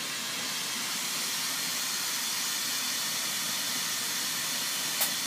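Glassworking bench torch burning with a steady hissing flame. A single sharp click sounds near the end.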